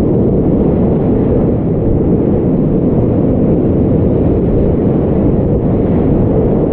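Steady, loud roar of big whitewater rapids, heard from a kayak running through them, with water splashing over the kayak and paddle.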